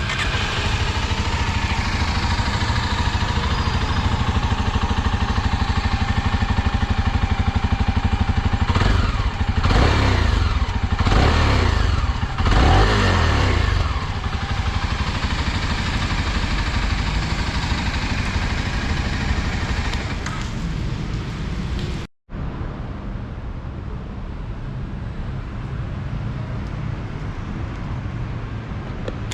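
Motor-vehicle engine noise with a vehicle passing by, its pitch sweeping, about ten seconds in. The sound cuts out for an instant about 22 seconds in, then the engine noise continues at a lower level.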